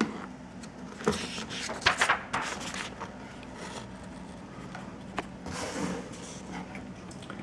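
Small handling noises: scattered scrapes, rustles and light knocks, over a steady low hum.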